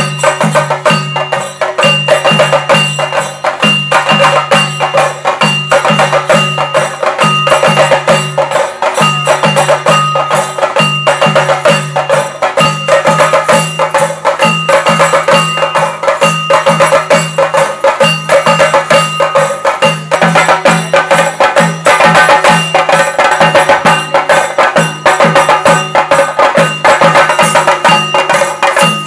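Chenda drums beaten in a fast, dense rhythm, with a deep beat pulsing about twice a second and a steady metallic ringing over it: theyyam drum accompaniment.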